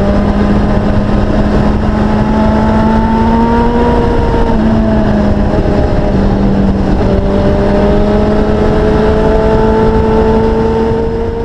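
Motorcycle engine running at steady high revs, its pitch shifting slightly now and then, under heavy wind rush on the microphone.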